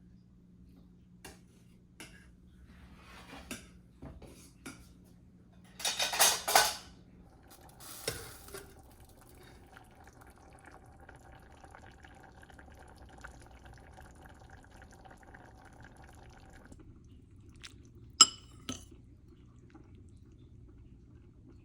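Kitchen clatter of pots, dishes and utensils: scattered light knocks, a loud scraping clatter about six seconds in and another soon after, then a sharp ringing clink near the end. A faint steady hum runs through the middle.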